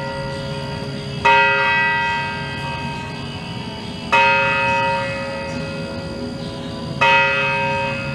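Courthouse clock-tower bell striking midnight: three slow strokes about three seconds apart, each ringing on and fading into the next, with the earlier stroke still sounding at the start.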